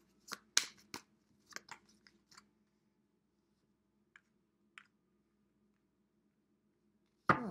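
Tarot cards being shuffled by hand: a quick run of crisp card snaps and flicks over the first couple of seconds, then two soft clicks a little later.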